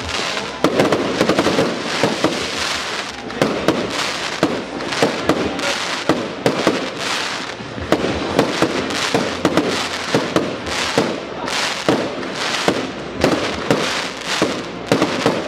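Professional fireworks display: aerial shells bursting in quick succession, with sharp reports several times a second over a continuous crackle.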